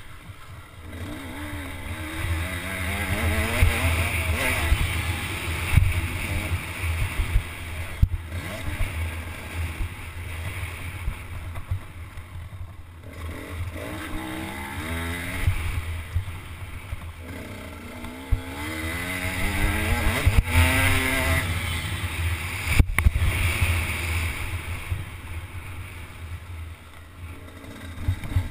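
Dirt bike engine revving up and easing off again and again as it is ridden round a motocross track, with several rising runs in pitch. Heavy wind rumble on the helmet-mounted microphone runs under it.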